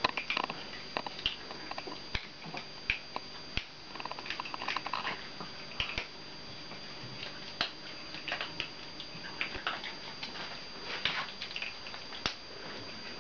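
Puppies playing on a tiled floor: irregular small clicks and taps of claws on the tiles and of a rubber ring toy being mouthed and dropped.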